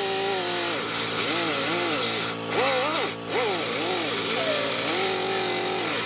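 Pneumatic air cutoff saw cutting through aluminum siding, its whine rising and falling in pitch as it slows in the cut and picks up again, over a steady high hiss, with two brief dips in the middle. The small compressor feeding it cannot keep up, so the tool is starved of air.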